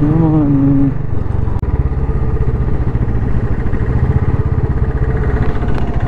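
Waterfall's rushing water: a loud, steady, low roar that does not let up.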